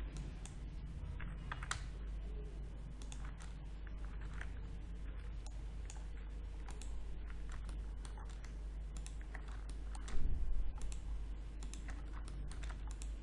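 Computer keyboard keys and mouse buttons clicking irregularly, over a steady low hum. A louder dull bump comes about ten seconds in.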